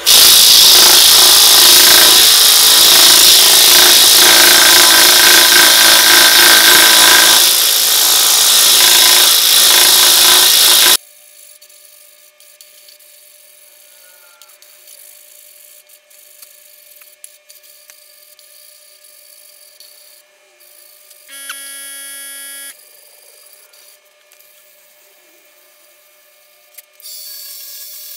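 Hickory handle spinning on a wood lathe while it is sanded: a loud, steady rushing hiss of abrasive on wood that cuts off suddenly about eleven seconds in. After that only a faint hum remains, with a brief tone a little past the middle and a short hiss near the end.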